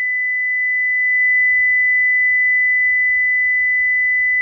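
Honeywell home alarm system sounding one steady, unbroken high-pitched tone, its alarm sound for a medical panic being tested.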